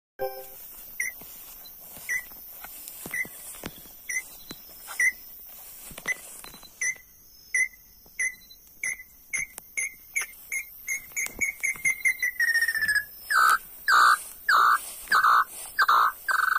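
A series of short whistled notes, about one a second at first, speeding up to several a second. They run into a drawn-out note that slides down in pitch, followed by a run of louder, lower notes near the end.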